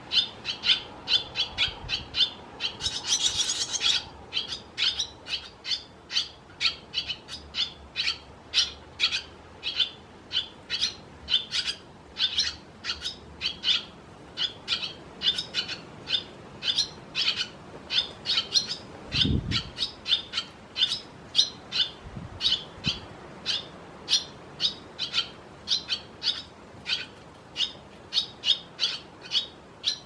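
Barn swallow fledglings calling: short, high calls repeated about two or three times a second, with a brief burst of denser, higher twittering about three seconds in. A single low thump comes about two-thirds of the way through.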